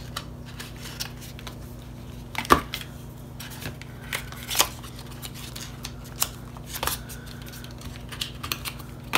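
Scattered clicks, taps and light rustling of small cosmetic packaging being handled and set down on a table, with the sharpest taps about two and a half and four and a half seconds in, over a faint steady low hum.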